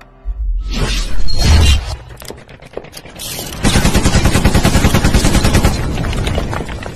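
A loud boom, then a rapid burst of evenly spaced cracks like automatic gunfire lasting about two seconds, fading near the end.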